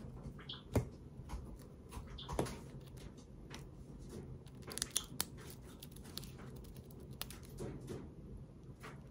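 A white Java sparrow gives two short high chirps, about half a second and two seconds in, among scattered light clicks and taps of handling.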